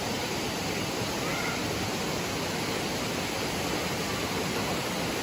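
Waterfall rushing: a steady, dense noise of falling water close by, with a faint bird chirp about a second in.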